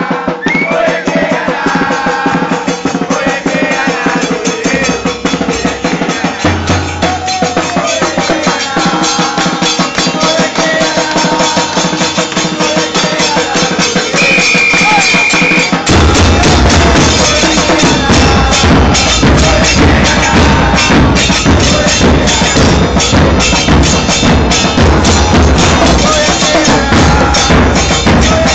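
Argentine football supporters' band of bombos and other drums playing a fast, dense rhythm, with voices singing along in the first half. About 16 s in the drumming turns louder and fuller in the low end; a high steady tone sounds briefly just before that.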